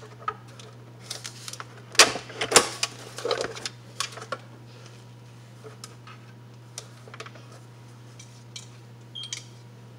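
Clicks and knocks of hands working the plastic parts of a kitchen appliance, loudest and densest about two to four seconds in, then a few faint ones, over a steady low hum.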